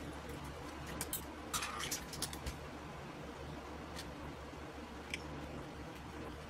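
Small clicks and taps of camera parts and a screwdriver being handled during reassembly: a quick cluster of clicks about a second in, then two single clicks later, over a faint steady low hum.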